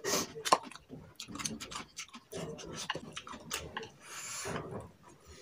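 Chopsticks clicking and scraping against plates during hurried eating: many small, irregular clicks, with a short hiss about four seconds in.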